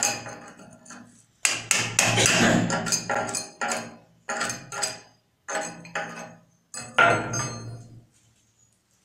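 Hand hammer driving a steel chisel at the edge of a black stone slab: a dozen or so ringing metallic blows at an uneven pace, thickest in the middle and stopping about eight seconds in.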